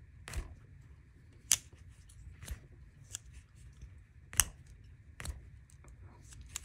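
Spyderco Chaparral back-lock folding knife clicking and snapping as its blade is repeatedly flicked and closed in the hand, a series of sharp clicks with two louder snaps about a second and a half and four and a half seconds in. The flick opening keeps failing on the stiff new knife, which is not yet broken in.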